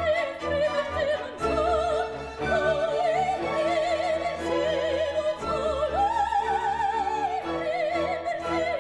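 Operatic soprano singing an aria with a wide vibrato over orchestral accompaniment. She rises to a held high note about six seconds in and drops back a second and a half later.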